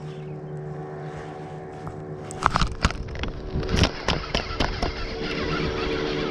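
A steady motor hum runs throughout. About halfway through come a cluster of sharp knocks and rattles, likely rod and reel handling against the kayak as a bass is hooked and played, and then a rising rushing noise.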